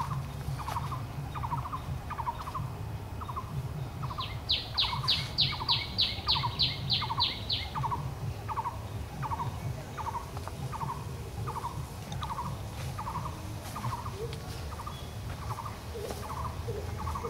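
Forest birds calling: one repeats a short note over and over, about three every two seconds, while another gives a quick run of about a dozen loud, high notes in the middle.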